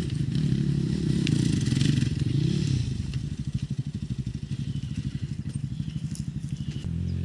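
Enduro dirt bike engine revving up and down, then dropping to a slow, pulsing putter at low revs about three seconds in.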